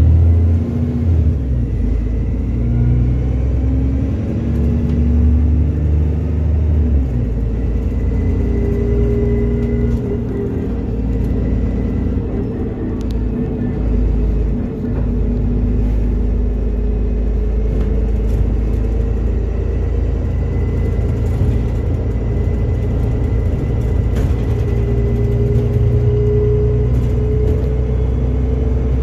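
Alexander Dennis Enviro 400 double-decker bus on a Trident chassis, its diesel engine and drivetrain running while under way, heard inside the bus. In the first seven seconds the engine pitch shifts in steps through gear changes, then it runs steadily with a thin high whine and a few light rattles.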